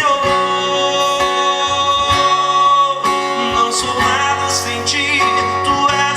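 Music: an instrumental passage of a Portuguese worship song, led by guitar over a bass line that changes note every second or so.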